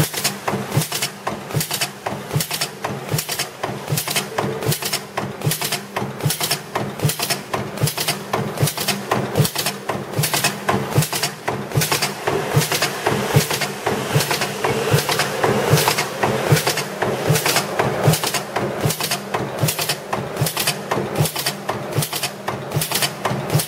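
Hydraulic J-nail staple forming machine running: a steady hydraulic-unit hum under rapid, evenly spaced clacking strokes as it forms staples from a steel strip.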